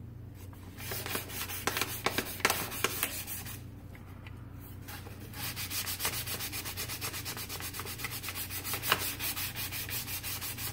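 Sandpaper rubbed by hand back and forth over a knife handle. The strokes are uneven at first with a short pause, then quick and steady through the second half.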